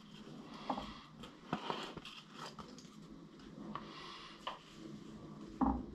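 Faint handling sounds from a milling-machine spindle turned by hand to swing a dial test indicator on its tram bar to the other side of the table: a scattering of light clicks and scrapes, with a duller, louder knock near the end.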